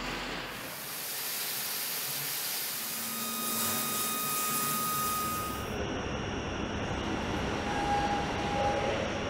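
Water jets spraying hard onto a truck cab body, giving a dense hiss. About two-thirds of the way through it cuts off to a steady factory hum, with a brief high tone near the end.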